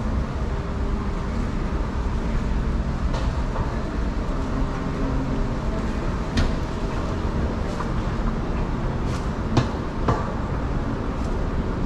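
Steady low rumble of an indoor walkway's ambience and a moving walkway, with a few sharp clicks or taps about halfway through and twice near the end.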